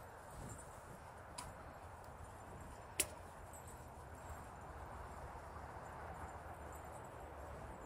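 Faint footsteps swishing through dry grass, with one sharp click about three seconds in.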